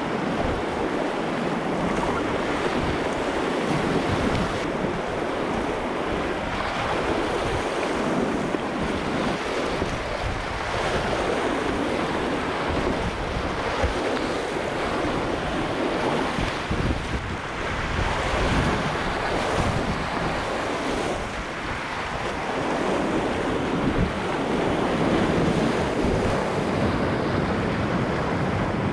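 River whitewater rushing and churning close around a kayak running high-water rapids: a continuous roar of water, swelling louder now and then as the boat passes through the waves.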